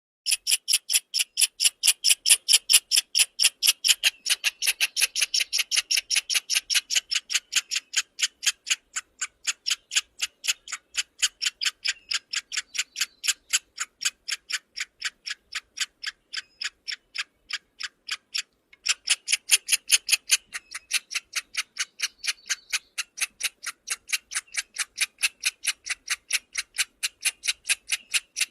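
Squirrel chirping: a long, evenly paced run of short, sharp, high chirps, about three to four a second, with a brief pause about two-thirds of the way through.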